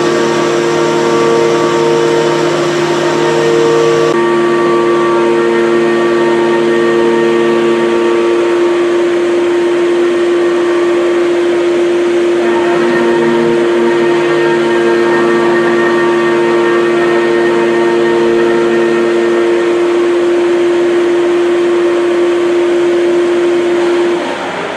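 Haas VF-4SS CNC mill cutting a circular pocket in 6061 aluminum under flood coolant: a steady spindle whine with a cutting tone that comes and goes in long stretches, over the hiss of coolant spray. The whine stops shortly before the end.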